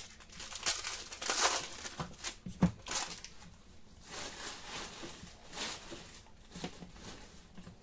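Crinkling and tearing of a trading-card pack wrapper being opened and handled, in short rustles, with one sharp tap about two and a half seconds in.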